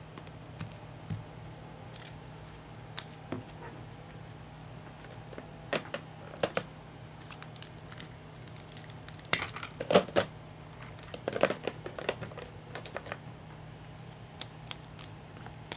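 Trading-card pack wrappers crinkling and tearing as packs are handled and opened, with light taps and clicks of cards, in irregular bursts that are loudest about ten seconds in.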